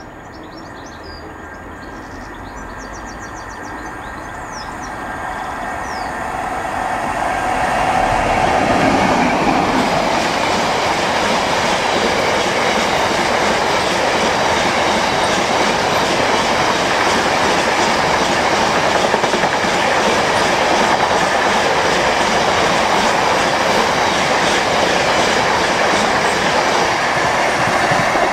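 Freight train approaching, growing louder over the first eight seconds or so, then passing at full loudness with its wagons running along the track.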